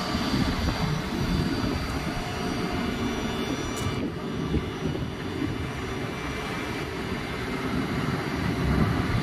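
Gas compressor booster station machinery running: a steady drone with several constant hum and whine tones over an uneven low rumble.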